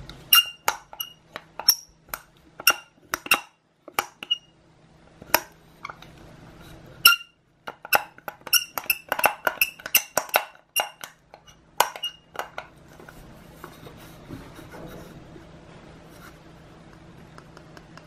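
Mechanism of a 1980s ATS (Aldridge) pedestrian call button being worked by hand: a run of sharp metallic clicks from the button plate and its microswitch, many with a brief ringing tone. The clicks are spaced at first, come fast and irregular in the middle, and stop about thirteen seconds in.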